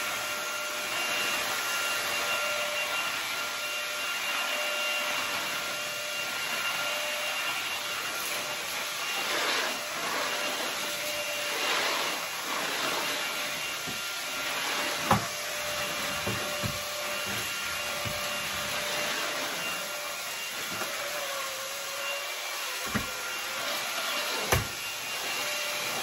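MONCTONS cordless stick vacuum with a 320 W brushless motor running steadily with a faint whine while its floor head is pushed over a hard floor. A few sharp clicks sound in the second half.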